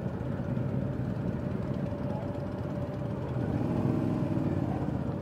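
Motorcycle engine running at low speed, from a 2015 Triumph America's 865cc air-cooled parallel twin, heard through a helmet-mounted microphone. A louder engine note swells briefly about three and a half seconds in.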